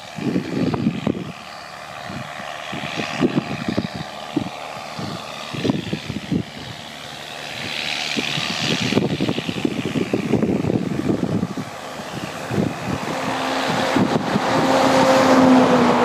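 John Deere 7810 tractor's six-cylinder diesel engine working under load as it pulls a cultivator through the soil, heard from a distance with wind buffeting the microphone. The engine drone grows louder and steadier over the last few seconds.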